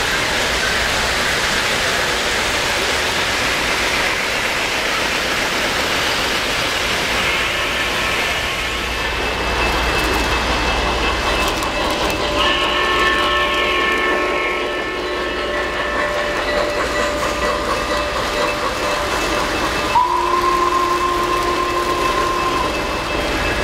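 O-gauge model trains running close by on three-rail track, a steady rumble and rattle of wheels on the rails. About halfway through, a model steam locomotive's electronic sound system blows its whistle, a several-note chord held for a few seconds, and sounds it again twice near the end.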